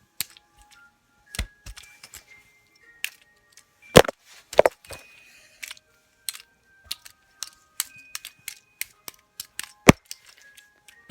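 Plastic Fidget Cube being fiddled with: irregular sharp clicks of its buttons and switch, with a few louder knocks about four seconds in, again just after, and near the end. Faint steady electronic tones sound between the clicks.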